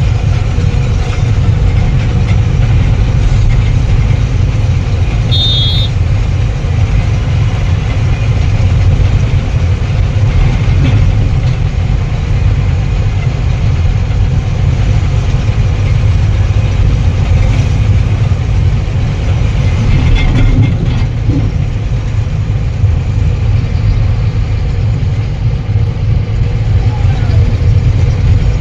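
Truck engine running, a steady, loud low rumble. A brief high-pitched tone sounds once, about five and a half seconds in.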